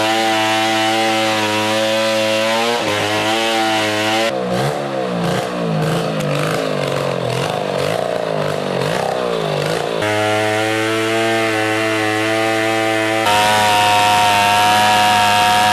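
Two-stroke chainsaw running continuously as a log is cut. From about four seconds in, the engine pitch dips and rises repeatedly as the chain bites into the wood under load. It settles back to a steady note around ten seconds in and runs a little louder near the end.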